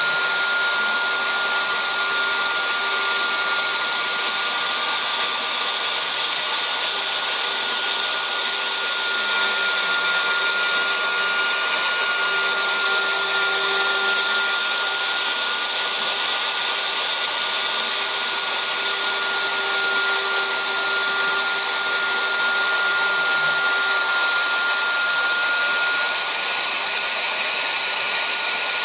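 CNC router spindle running at high speed with a steady whine, its small bit milling a curved profile into a wooden board.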